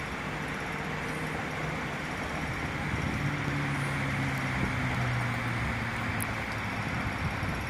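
Steady outdoor background noise: an even rushing hiss with a low hum beneath it, the hum growing a little louder about three seconds in.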